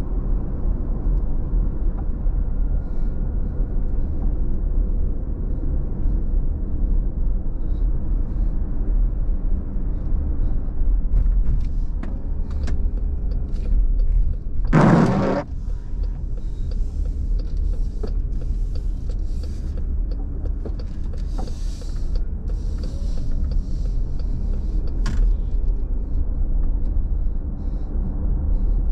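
Steady low road and engine rumble inside a moving car's cabin on wet roads. About halfway through there is a short, loud burst of noise.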